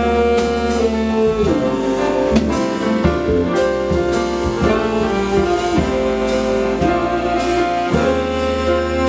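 Live jazz band playing a Brazilian song: a saxophone carries a gliding melody over piano, electric bass and drum kit with cymbals.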